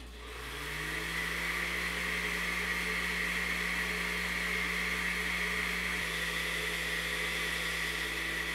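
Countertop electric blender switching on, its motor rising in pitch over about the first second as it spins up, then running steadily while blending sugar syrup in its glass jar.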